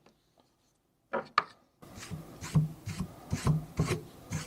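An eraser rubbing back and forth on paper in quick, short strokes, lifting paint from a spot that has been wetted first. Two short rubs come about a second in, then a steady run of strokes, about three a second.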